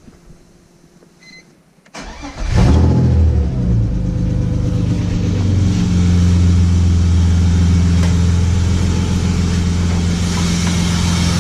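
BMW M52B28 straight-six engine cranked and started about two seconds in, flaring up briefly and then settling to a steady idle. It runs quietly with no knock while the belt bypasses the power steering pump, which the owner takes as a sign that the power steering pump is the source of the knock.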